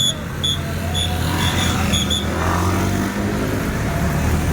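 A bus engine running steadily, with a string of short, high-pitched pips over about the first two seconds.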